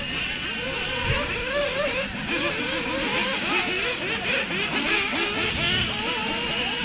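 Several 1/8 scale off-road RC buggies racing at once, their small motors revving up and down in overlapping, constantly shifting whines.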